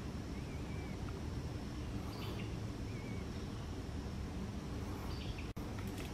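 Quiet woodland ambience: a steady low rumble with a couple of faint, short bird chirps, one about half a second in and one about three seconds in.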